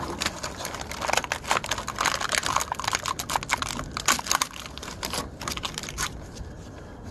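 Crinkling and crackling of packaging as a box of fire-lighter cubes is handled and opened: a dense run of small clicks that thins out about six seconds in.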